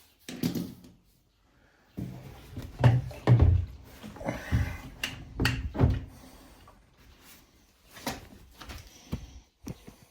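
Knocks, clunks and rustles of things being handled by hand, loudest and busiest from about two seconds in to about six seconds in, with a few lighter knocks near the end.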